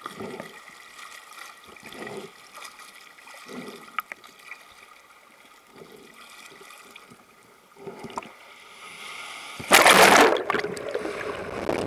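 Surf water sloshing and splashing around a swimmer, heard through a waterproof action camera's housing at the water surface, in soft swells every second or two. About ten seconds in, a loud rushing splash as the camera goes under the water, and another near the end.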